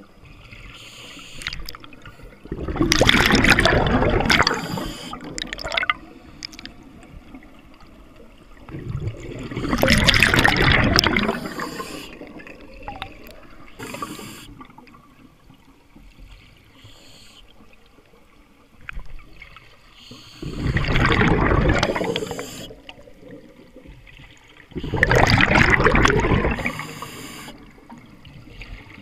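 Scuba diver exhaling through an open-circuit regulator underwater: four loud bursts of bubbles, each about two seconds long, with quieter regulator hiss and clicks between.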